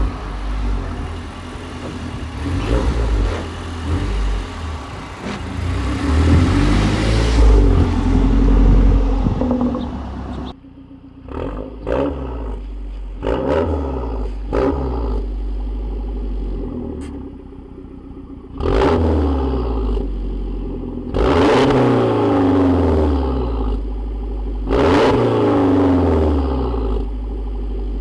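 Mazdaspeed 3's 2.3-litre turbocharged four-cylinder, breathing through a catted downpipe and a non-resonated Magnaflow cat-back exhaust. For about ten seconds it is loud in a drive-by under acceleration. After a sudden cut the parked car is blipped in short quick revs, then given three longer revs, each dropping back down toward idle.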